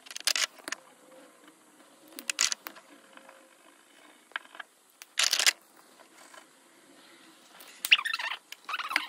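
A paintbrush and oil pastel scrubbing on paper in short scratchy strokes, about six of them spread out, the loudest pair near the end.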